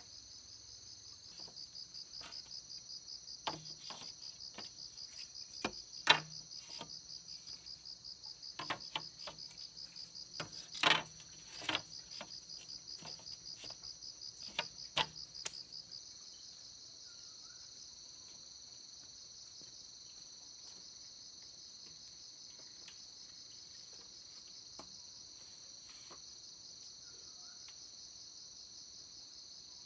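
Insects chirping in a high, fast-pulsing drone that grows softer and steadier about halfway through. Scattered sharp knocks and taps of bamboo being handled fall in the first half, the loudest about six and eleven seconds in.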